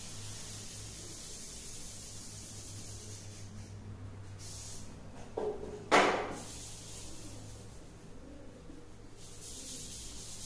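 Chalkboard duster scrubbing over a chalk line in short rubbing passes, then two knocks just before six seconds in, the second sharp and the loudest, as the duster is set down on the board's wooden ledge. Near the end a hand rubs across the chalkboard.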